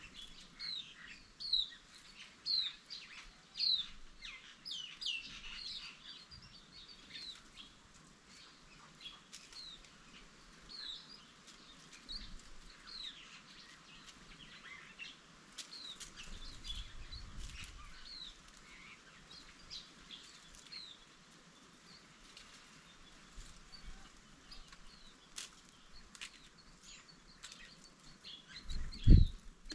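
Green-backed white-eyes calling: a run of short, high, down-slurred chirps, densest over the first six seconds and sparser after. A single low thump near the end is the loudest sound.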